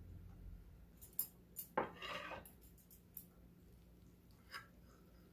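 Metal spoon clinking against a plate as it scoops fried rice: a few light clicks, with a brief scrape about two seconds in.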